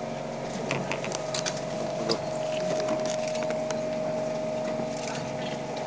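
Tatra T5C5 tram's electrical equipment giving a steady hum and whine as the car is brought up to another for coupling; the tone grows stronger about a second in. Scattered small clicks and shuffling from the track and the onlookers.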